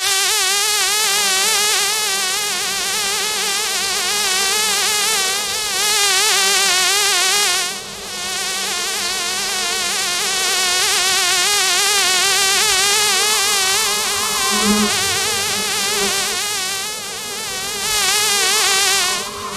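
Honey bee buzzing close up, one continuous wing buzz whose pitch wavers up and down rapidly. The buzz briefly fades about eight seconds in and again near the end.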